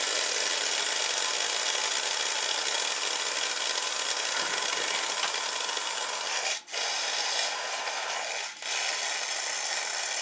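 Water and air hissing out under leftover pressure from the open port of a jet pump where the pressure switch line was taken off. The spray is steady, cut briefly twice, about six and a half and eight and a half seconds in.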